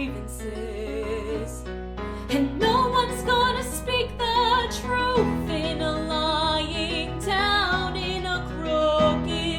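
Woman singing long held notes with wide vibrato over instrumental accompaniment, swelling louder about two and a half seconds in.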